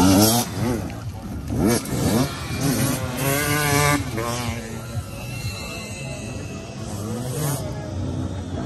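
Enduro dirt bike engines revving hard as riders race past on a gravel beach track. The engine pitch rises and falls over and over with the throttle and gear changes. It is loudest at the start, then quieter and farther off through the middle.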